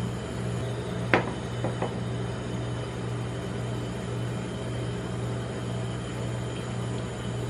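Steady low hum of a rolled-ice-cream machine with its refrigerated steel plate running. About a second in, one sharp knock on the metal plate, then two lighter knocks about half a second later.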